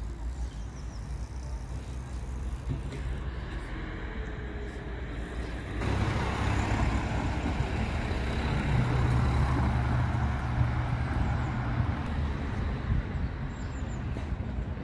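Street traffic noise with a motor vehicle engine running close by. The sound turns abruptly louder about six seconds in, and a steady engine drone is strongest in the middle before easing off.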